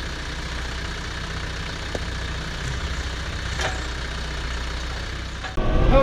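Branson 5520 tractor's diesel engine idling steadily.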